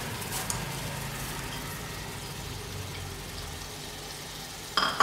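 A steady low hum with a faint sizzle from chicken masala cooking in an aluminium pot, as fresh coriander and mint are dropped in. A sharp, ringing clank comes near the end.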